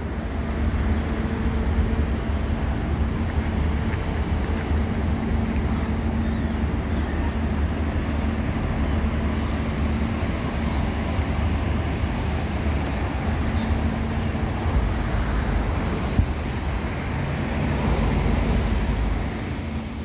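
Steady low engine rumble with a constant hum under a wash of noise.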